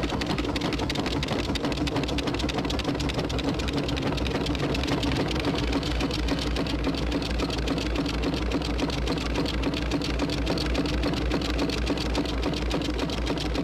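Steam traction engine running: a fast, even mechanical clatter with a steady hum beneath it.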